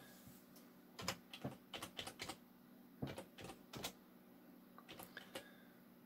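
Typing on a computer keyboard: faint, irregular key clicks, a dozen or so spread out with short pauses between.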